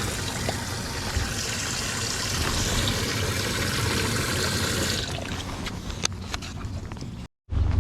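Water running and splashing steadily for about five seconds, then quieter with a few light clicks and knocks, cutting off suddenly near the end.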